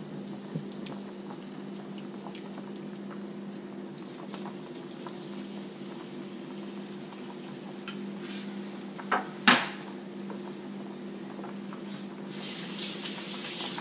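Deer steaks sizzling faintly in oil in a frying pan, with a pot of potatoes boiling beside it under a steady low hum. A few light clicks, then two sharp knocks about nine seconds in, the loudest sound, and a louder hiss starting near the end.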